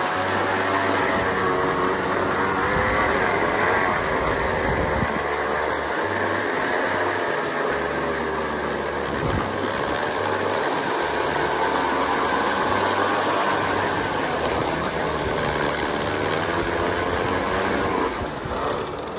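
Narrow rollers of a long roller slide spinning under riders sliding down: a steady whirring rumble whose pitch wavers up and down with speed, fading near the end as the ride comes to a stop.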